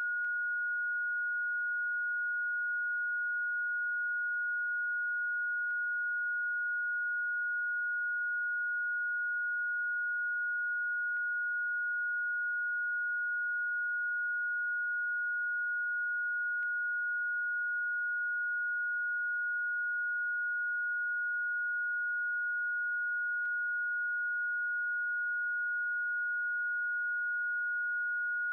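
A synthesized sine-wave tone played as a Rife frequency: one steady, high-pitched pure note held without any change.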